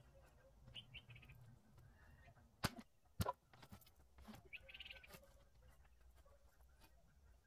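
Quiet background with a few faint bird chirps and two sharp knocks about half a second apart near the middle.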